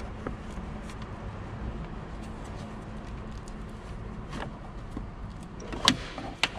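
Faint handling noise as a hand twists a clutch master cylinder in its firewall mount, with a sharp click near the end.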